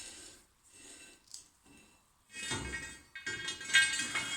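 Steel pieces clanking and knocking together, with ringing after each strike. The knocks are faint at first and grow louder and more frequent from about halfway.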